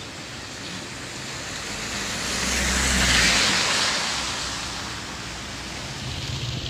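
A car drives through shallow floodwater and passes close by. The hiss and swish of its tyres in the water swells to a peak about three seconds in, with a low engine rumble, then fades as it moves away.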